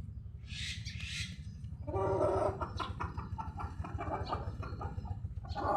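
Chicken clucking: a drawn-out call about two seconds in, then a run of short, quick clucks.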